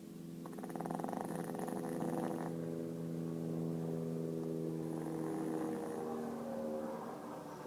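Chihuahua snoring: long, drawn-out snores with a steady pitched tone running through them.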